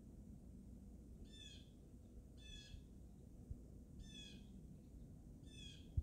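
Blue jay calling four times, short ringing calls about every second and a half, over a low steady background rumble, with a low thump right at the end.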